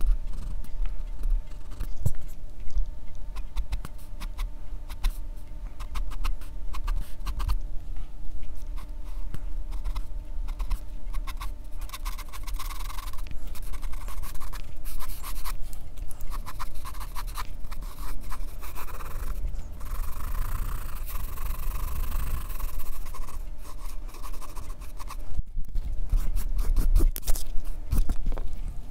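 Pencil scratching on drawing paper, in many short quick strokes and longer unbroken stretches of strokes.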